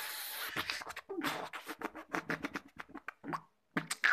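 Beatboxing with the mouth into cupped hands: a hiss lasting about a second, then a fast, irregular run of clicks and pops with a short pause near the end.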